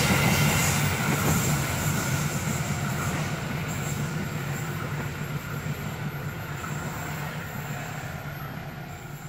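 Passenger train rolling away down the track, its wheel-on-rail noise fading steadily as the last coaches recede.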